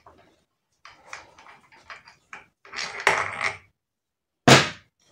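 Metal tools being handled on an engine's aluminium crankcases: a few seconds of scraping and clattering, then one sharp, loud clunk about four and a half seconds in.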